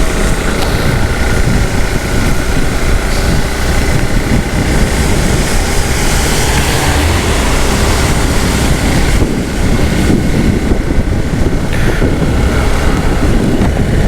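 Motorcycle ride at speed: wind rushing over the microphone on top of the engine and road noise, a steady loud roar.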